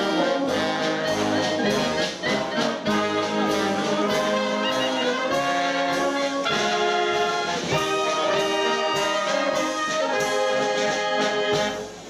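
Wind band of saxophones, trumpets and low brass playing a tune with a steady beat, about two beats a second.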